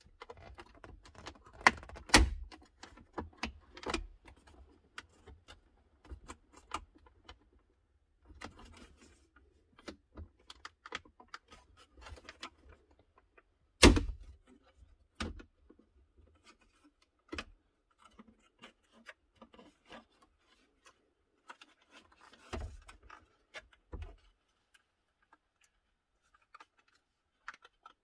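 Plastic trim clips clicking and snapping as the rear centre console air-vent panel of a BMW E90 is pried loose by hand, with scattered knocks and rattles of the plastic. The loudest snaps come about two seconds in and again about halfway through.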